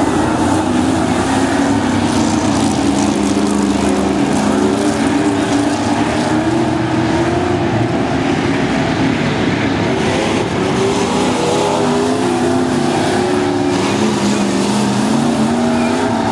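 Several dirt-track stock car engines running at once, their pitches rising and falling as the cars go around the oval.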